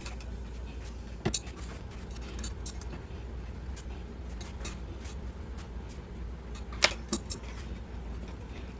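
Metal parts and hand tools clinking and tapping as a thermocouple is fitted to a water heater burner: a sharp clink about a second in, two more close together near the end, and lighter ticks between, over a steady low hum.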